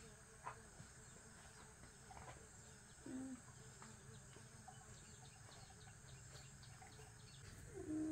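Near silence: faint outdoor ambience with a steady high hiss, and two short low calls that fall slightly in pitch, about three seconds in and near the end.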